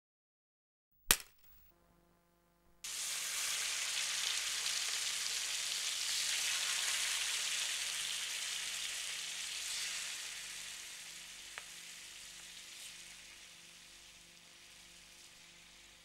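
Eggs frying in hot oil in a frying pan: a dense sizzle that starts suddenly about three seconds in and fades gradually over the last several seconds. A single sharp click comes about a second in, before the sizzle.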